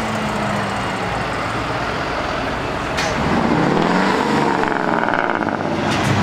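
Heavy diesel trucks driving past in a convoy, engines running; about three seconds in, one truck passes close and gets louder, its engine note rising and then falling as it goes by.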